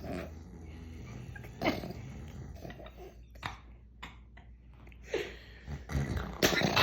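A sleeping puppy snoring in short, separate snores, about one every second and a half to two seconds, the loudest near the end.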